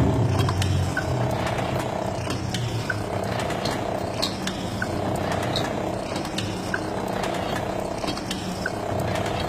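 Fully mechanical cigarette filter-tube filling machine running, its mechanism clicking and ratcheting in a regular repeating cycle of roughly one stroke every second and a half. A loud low hum at the start fades within the first second.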